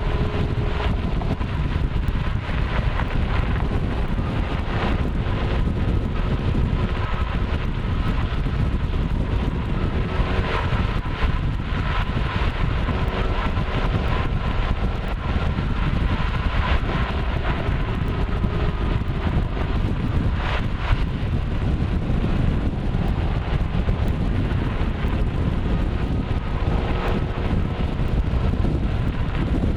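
A Shelby GT500's V8 running as the car drives along, under heavy wind and road noise, with a few short exhaust crackles scattered through.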